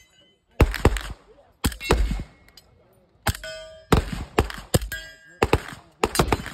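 Gunfire on a range: about nine unevenly spaced shots in six seconds, with a gap of over a second after the second shot. Several shots are followed by a brief metallic ringing.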